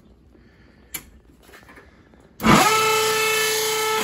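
A Whirlpool dryer is switched on and gives a loud, high-pitched squeal while the drum doesn't turn, because the drive belt is broken. The squeal starts about two and a half seconds in with a short rising sweep, then holds steady. A single click from the timer dial is heard about a second in.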